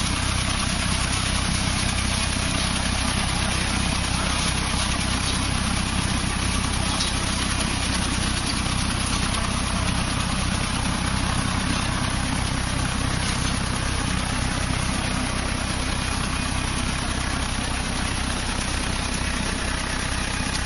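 Tractor engine running steadily under load, mixed with the steady cutting noise of a tractor-mounted hydraulic reciprocating sickle bar trimmer shearing through berry bushes.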